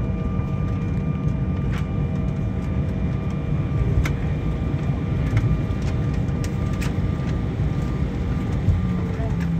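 Steady low rumble of jet airliner cabin noise while taxiing after landing, with a few faint steady whining tones from the engines and some small clicks.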